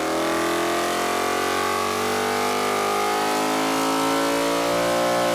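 Ford 351 Windsor-based 427 cubic-inch stroker V8 on a Holley 1150 CFM Dominator carburetor, making a wide-open-throttle dyno pull. Its note climbs slowly and steadily in pitch as the revs rise, pulling cleanly with no hesitation or stumble.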